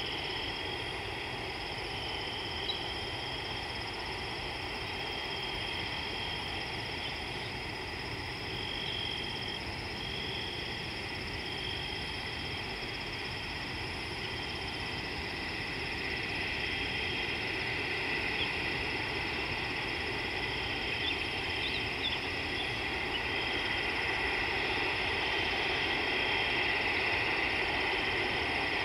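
Steady high-pitched evening insect chorus, held shrill bands that grow somewhat louder in the second half, over a low even outdoor rumble.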